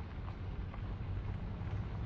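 Pickup truck engine running, a steady low hum heard through the open cab window.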